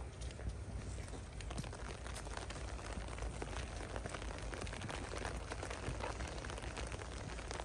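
Steady rain falling on paving and grass, a dense patter of small drop ticks over a constant hiss, with a steady low rumble underneath.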